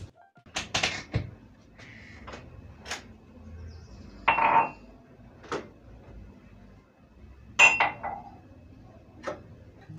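Dishes, pots and cutlery being handled at a kitchen sink: about seven separate clinks and clatters. The loudest come about four and a half and seven and a half seconds in, each ringing briefly.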